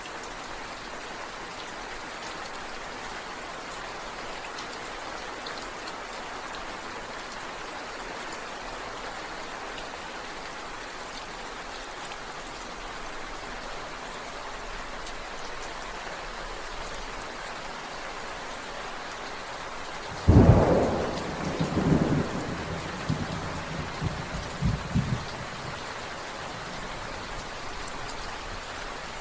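Steady rain falling, with a sudden thunderclap about two-thirds of the way through that rolls on in rumbles for about five seconds before the rain alone continues.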